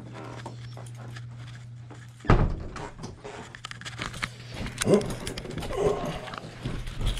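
A dog panting and whimpering, with a loud thump about two seconds in over a steady low hum.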